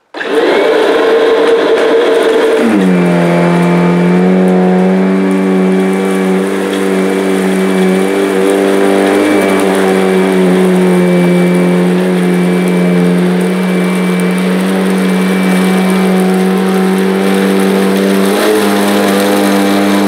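Kirby upright vacuum cleaner switched on: its motor starts suddenly, its note drops about two and a half seconds in, then it runs with a steady hum.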